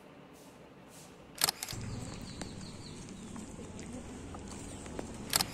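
Faint scratching of a ballpoint pen on paper, then a sharp click about a second and a half in. After it come footsteps on a gravelly dirt path over outdoor background noise, and another pair of sharp clicks near the end.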